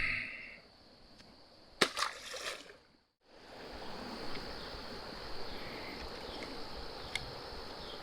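Steady rushing noise of a flowing river, starting after a short break in the sound about three seconds in. Before the break there is a sharp click and a brief noisy patch.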